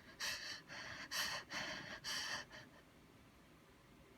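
A person's short, breathy gasping in-breaths, about five in quick succession, the hitching breaths of a sneeze coming on. They stop about two and a half seconds in.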